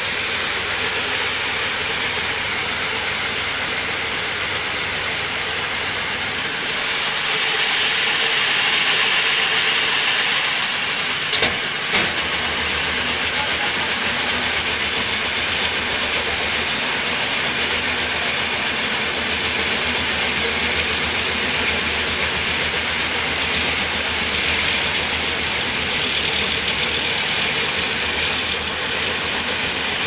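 Cattlekit silage round baler and film wrapper, driven by an electric motor, running steadily as it wraps a round bale in film. Two sharp knocks come a little before the middle, and after them a low hum sits under the machine noise.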